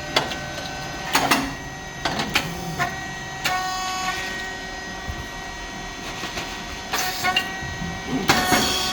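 SYP4509 rice cake popping machine running: a steady hum from its hydraulic pump motor and fan, with irregular clicks and knocks as the moulds cycle.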